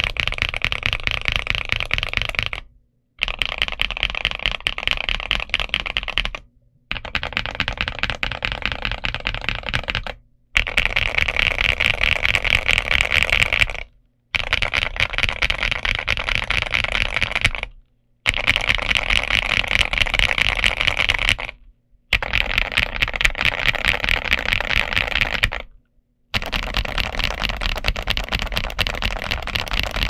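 Fast typing on a Zuoya GMK87 mechanical keyboard with MMD Holy Panda V3 tactile switches and XVX dye-sub Cherry-profile keycaps. The keystrokes run as dense, rapid clacking in stretches of about three and a half seconds, each broken off by a brief silent gap.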